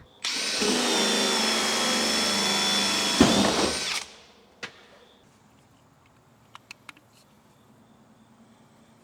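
Handheld power drill running at steady speed with a high motor whine for about four seconds, with a sharp knock shortly before it stops. A click and a few light ticks follow.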